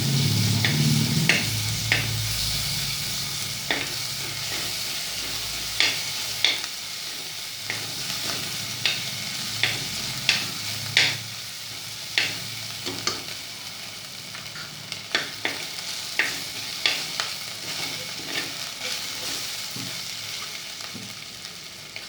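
Onion, dried toor dal sandge and freshly added ginger-garlic paste sizzling in hot oil, stirred with a utensil that clicks and scrapes against the pan at irregular moments about once a second. The sizzle slowly dies down.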